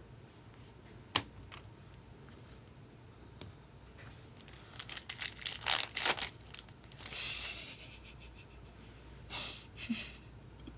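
Trading card packs being handled and torn open: a sharp click about a second in, then crinkling, tearing wrapper and cards sliding over each other, loudest around the middle.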